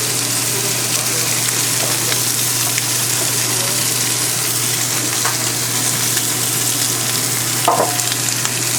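Thin-sliced beef brisket (chadolbaegi) sizzling steadily as it fries, with one sharp knock of a utensil near the end.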